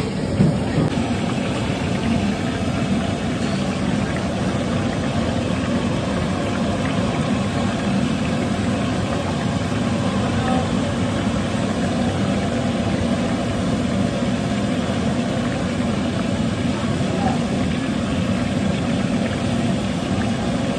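Steady roar of an LPG burner firing under a large iron kadai of oil while kachoris fry in it.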